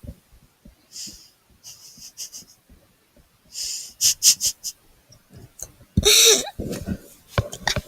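Keyboard keys clicking irregularly during typing, with breathy exhalations and a short vocal sound about six seconds in.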